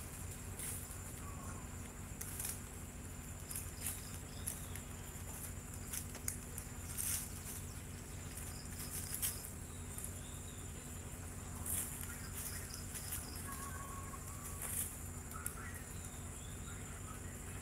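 Steady high insect buzz over a low steady hum, broken by irregular sharp clicks and rustles, with a few faint short chirps in the second half.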